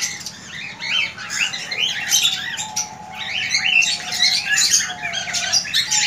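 A roomful of caged cockatiels chirping and squawking over one another in a dense, unbroken chatter of short calls, with a lower wavering whistle running underneath much of it.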